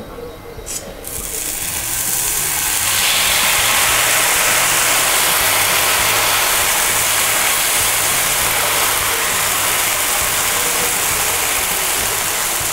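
Thin ragi (finger millet) dosa batter sizzling on a well-heated dosa pan. The hiss starts about a second in as the batter hits the pan, builds over the next second or so, then stays steady.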